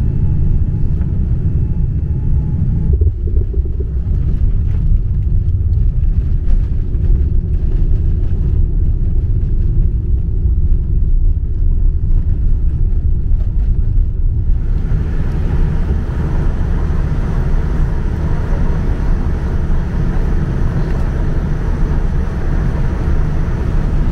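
Jet airliner cabin noise during landing, heard from a window seat over the wing: a steady deep rumble of engines and rushing air. There is a short break about three seconds in, and about halfway through it turns louder and hissier.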